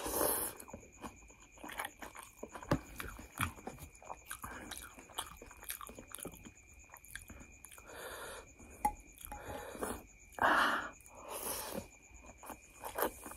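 Close-miked eating of noodle soup: noodles slurped in loud sucking bursts near the start and several times in the second half, with wet chewing and smacking clicks between them.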